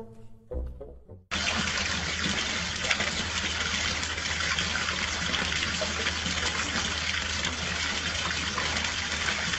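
Water pouring and splashing in a steady gush, starting suddenly about a second in.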